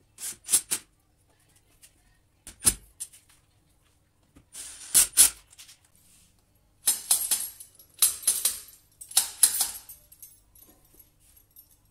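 Metal S-hooks clinking against each other and scraping on steel tube rails as they are slid along and set in place, in several short runs of sharp clinks, busiest near the end.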